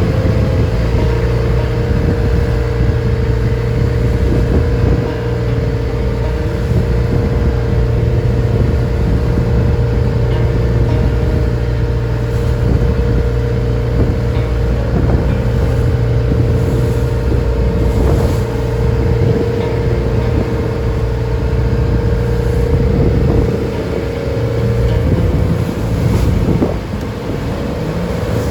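Engine of a wooden passenger boat running steadily under way, with water and wind noise; its steady note slackens near the end.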